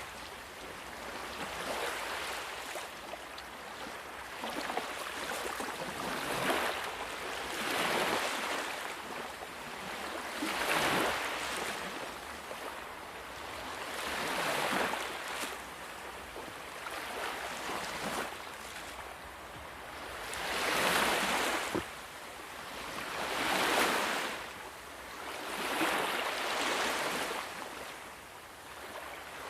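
Sea waves breaking and washing up on a shore, one swell of surf every three seconds or so, each rising and then falling away.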